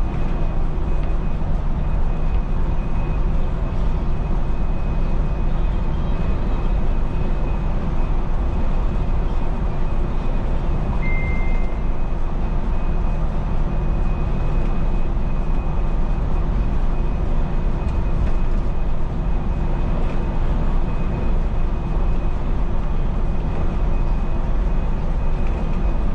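Cab noise of a MAN NL283 Lion's City city bus at steady cruising speed: engine hum and road noise with a steady tone. A short high beep about eleven seconds in.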